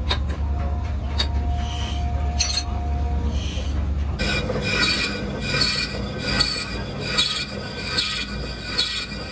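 Metal lathe turning a rear axle housing: it runs with a low hum, then about four seconds in the cutting tool bites into the steel and squeals, pulsing in a steady rhythm about once every 0.8 s.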